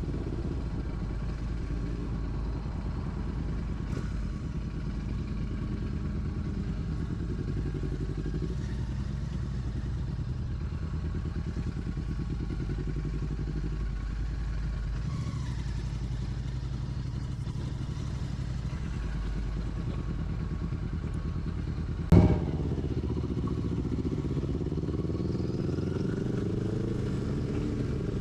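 Royal Enfield Classic 650's parallel-twin engine running steadily under way. Late on there is one sharp knock, the loudest thing heard, and after it the engine note rises as the bike accelerates.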